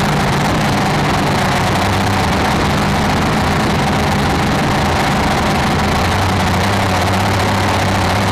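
Drone's motors and propellers humming steadily in flight, with a slight shift in the pitch of the low hum about halfway through.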